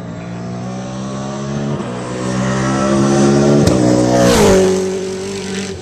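A V8 Supercar's V8 engine at high revs, its note rising slowly in pitch and growing louder as the car approaches. About four seconds in the pitch slides down as the car goes by, then holds at a lower note.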